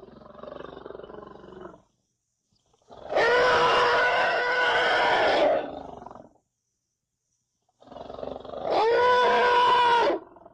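Elephant calling: two loud, drawn-out trumpet calls of about two and a half seconds each, the first about three seconds in and the second near the end. A quieter, lower call comes before them at the start.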